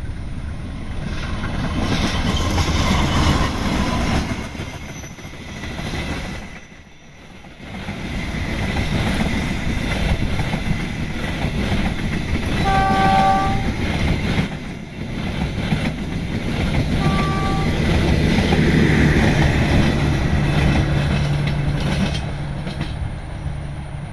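CC201 diesel-electric locomotive hauling a passenger train past at speed, with steady wheel-and-rail noise as the carriages roll by. A short horn sounds about halfway through and again a few seconds later. A steady low hum rises near the end as the train's tail, with its generator car, goes past.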